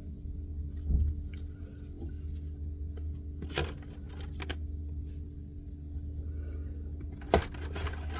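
Hands handling and opening a trading-card deck box and its cards: scattered light clicks and taps, with short rustles or scrapes of cardboard and plastic about three and a half seconds in and again near the end. A steady low hum runs underneath.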